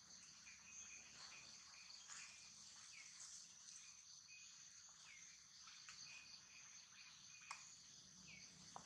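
Faint outdoor ambience: a steady high-pitched insect drone with short chirps repeating about once or twice a second, and a faint click or two near the end.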